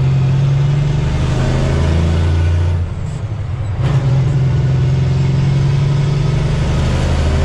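Semi-truck's diesel engine heard from inside the cab, pulling hard as the truck accelerates onto the highway. The engine drops off for about a second near the middle, as at a gear change, with a click as it pulls again.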